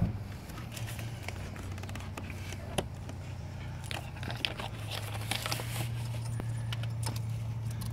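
Scattered small clicks, scrapes and crinkles of a hand working a plastic wiring connector down among engine-bay hoses, the arm rubbing against a foil-wrapped hose, over a steady low hum.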